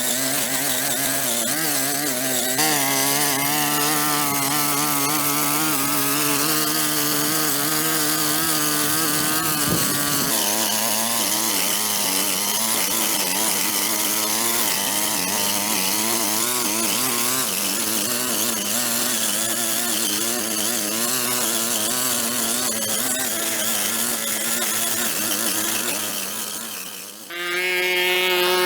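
Small engine of a handheld power tool running under load, its pitch wavering up and down; near the end it dips briefly and comes back at a higher, steadier pitch.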